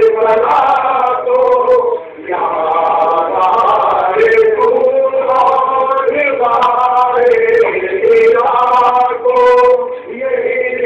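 Male voices singing a devotional chant in long sung phrases, with a short break about two seconds in and another near the end.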